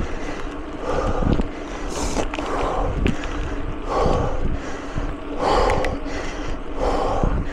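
Mountain bike riding over a rough trail: steady tyre hum with frequent rattling knocks and clicks from the bike over bumps. The rider's heavy breathing comes as a rhythmic puff about every second and a half.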